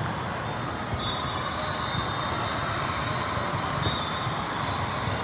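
Busy indoor volleyball-tournament din: a steady murmur of many voices across the hall with scattered thuds of volleyballs being hit and bouncing on the courts.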